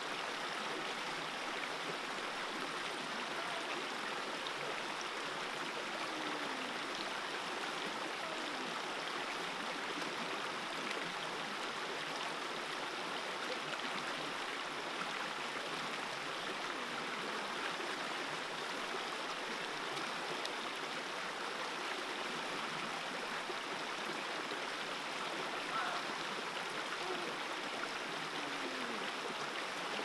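Shallow rocky stream running steadily over and between boulders, a constant rushing of water.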